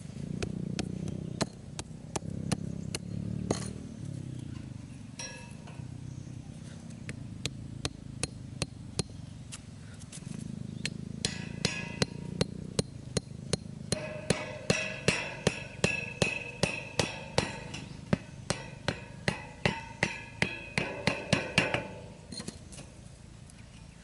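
Repeated knocks of a hatchet's back hammering a thin wooden stake into hard ground, scattered at first and then a steady run of about two blows a second through the second half, many of them ringing with a metallic tone.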